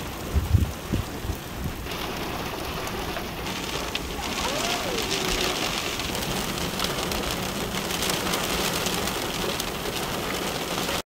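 Heavy rain falling steadily on open desert ground, a dense hiss that grows louder after about two seconds. A few low thumps in the first second and a half.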